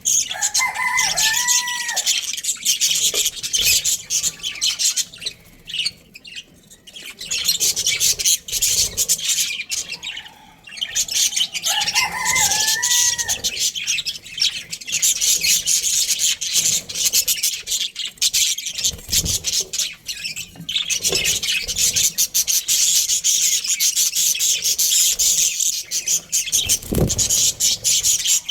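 Budgerigars chirping and chattering: a dense stream of rapid high chirps, with two louder gliding calls about a second in and again about twelve seconds in.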